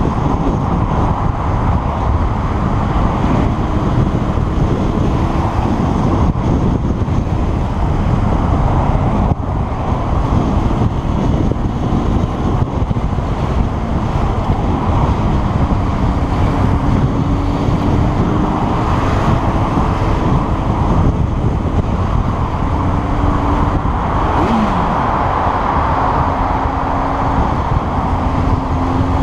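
Steady wind and road rush on a motorcycle-mounted camera riding through motorway traffic, with a faint engine note drifting slowly up and down in pitch.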